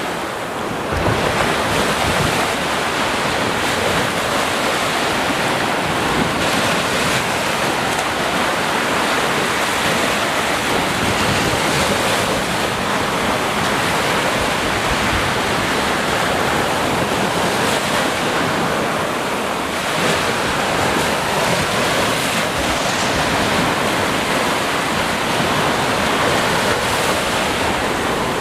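Steady rain falling, a dense, even hiss with no breaks.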